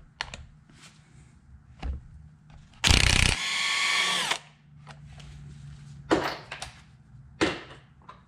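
Impact wrench hammering the 17 mm flywheel bolt loose on a Suzuki SV650 engine. About 3 s in it rattles for half a second, then spins freely for about a second as the bolt runs out, its whir dropping in pitch as it stops. Two sharp metal clanks come near the end.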